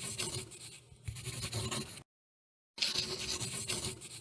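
Marker drawing on paper: scratchy pen strokes in quick succession. They stop about two seconds in, and after a short silence resume for about a second and a half.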